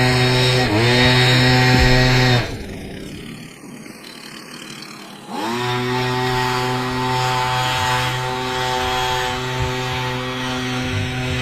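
Stihl MS180 two-stroke chainsaw revving: quick throttle blips, then about two seconds in it drops away for roughly three seconds before revving back up and running steadily at high speed.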